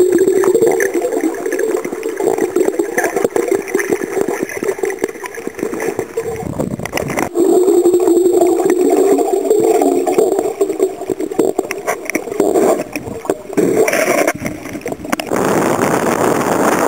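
Muffled underwater churning and gurgling of water against the camera housing. About fifteen seconds in it gives way to a steady hiss of wind and waves on open water.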